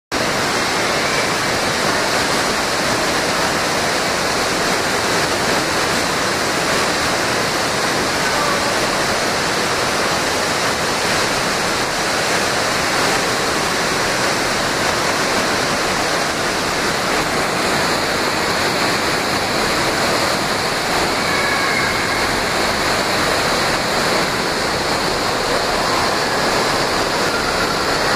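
Steady rush of water from water slides gushing into a splash pool.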